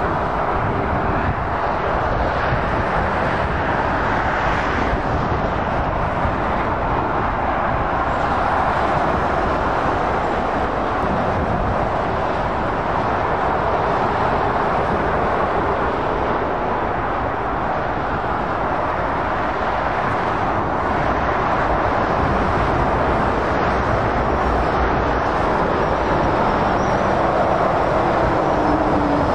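Heavy motorway traffic passing at speed: lorries and cars giving a steady rush of tyre and engine noise. It grows a little louder near the end.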